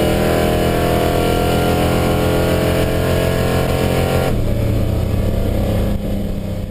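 Chevy C10 pickup's engine pulling under acceleration, heard inside the cab, its pitch climbing steadily. About four seconds in the engine note changes abruptly, and it falls away near the end.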